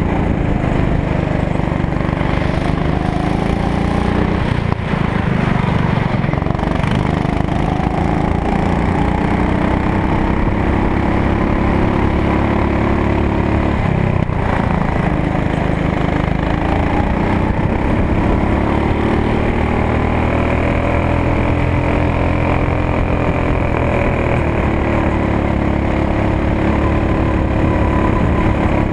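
Go-kart engine heard from on board, running hard at high revs; its pitch drops sharply a few times as the throttle is lifted for corners and climbs again as it accelerates out.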